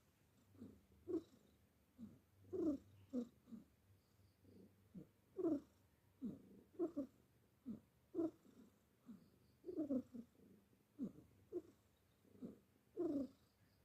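A domestic cat snoring in its sleep: soft, short rasping snores, each dropping in pitch, coming in clusters about every two to three seconds with its breathing.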